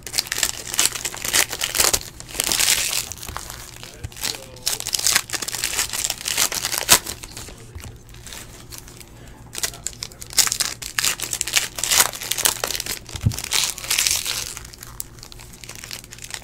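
Foil trading-card pack wrappers crinkling and tearing as packs are ripped open and handled, in irregular bursts of crackle.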